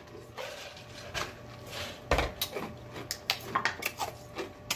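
A man gulping a drink from a large plastic jug, with soft breathy swallowing. About two seconds in there is a loud thump, then a run of short, sharp mouth clicks and smacks.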